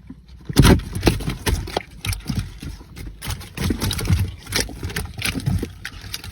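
Rapid, irregular knocking and slapping of fish flapping about inside a lifted mesh fish trap.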